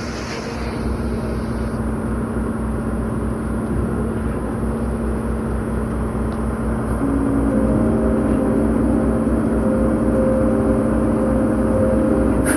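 Concrete pump truck's diesel engine running steadily under load, with a low, fast pulsing hum.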